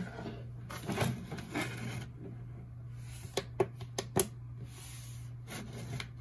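Light plastic clatter and rustling as painted press-on nail tips on their holders are set inside a gel-curing lamp, with a quick run of four sharp clicks a little past halfway, over a steady low hum.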